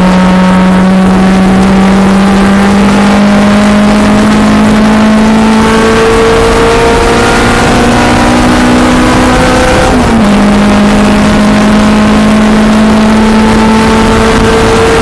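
Honda K24 inline-four engine of a 1993 Civic pulling hard on track, heard from inside the cabin. Its pitch climbs steadily, drops sharply at an upshift about ten seconds in, then climbs again.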